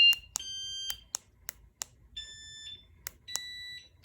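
Battery-powered motorcycle alarm giving electronic beeps of different pitches as its sensitivity level is stepped through: a loud tone cuts off just after the start, then three short beeps follow, with sharp clicks between them.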